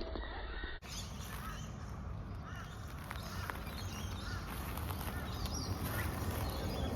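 Birds chirping and calling, many short chirps, over a steady low rumble.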